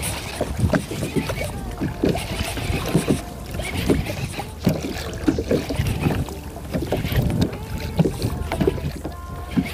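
Water slapping and splashing irregularly against the hull of a fishing kayak as a hooked fish tows it along at speed.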